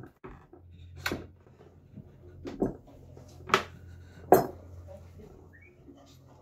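A hammer striking the back of a blade set into a birch log, driving it into the bark. There are four sharp metallic knocks at uneven intervals of about a second, over a faint low hum.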